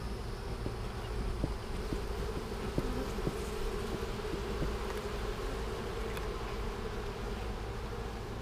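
Italian honey bees humming steadily over an open hive, the combined buzz of many bees, with a few faint clicks.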